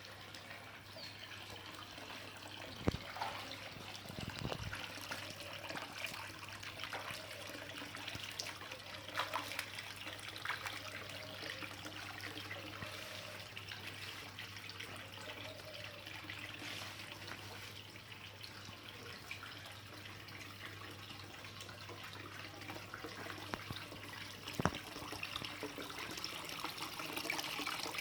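Water trickling and splashing steadily from a small homemade indoor fountain, over a steady low hum. A few sharp knocks are heard, about three seconds in, a second later, and again near the end.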